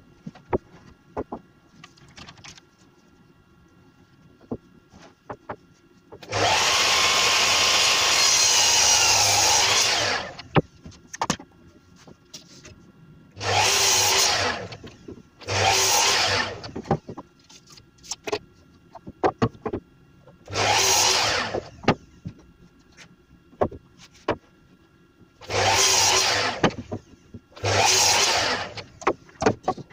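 Festool Kapex sliding mitre saw cutting wooden battens to length: one long run of about four seconds, then five short cuts of just over a second each. Small knocks and clicks of timber being handled fall between the cuts.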